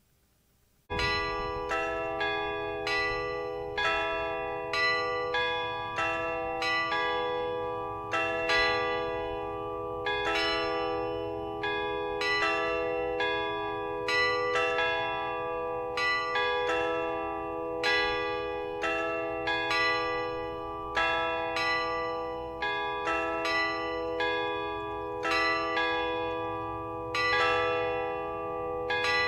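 Church bells pealing after a second of near silence: strikes about twice a second at several different pitches, each tone ringing on under the next.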